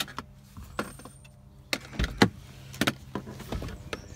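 Footsteps walking: a run of irregular knocks and clicks, about nine in four seconds, over a steady low hum.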